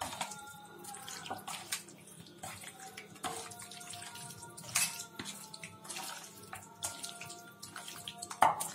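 Raw chicken pieces being squeezed and mixed by hand in a thick curd and chilli marinade in a steel bowl: irregular wet squelching and squishing.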